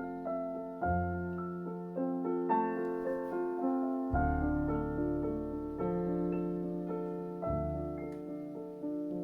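Background piano music: a slow, gentle melody over sustained bass notes.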